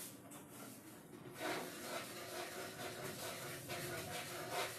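Quiet room tone: a steady hiss with a few faint, short soft sounds.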